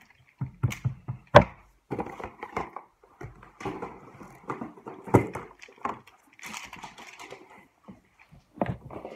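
Irregular knocks, thumps and scuffing as toys and a cardboard game box are handled and picked up off a carpeted floor, with one sharp knock about a second and a half in.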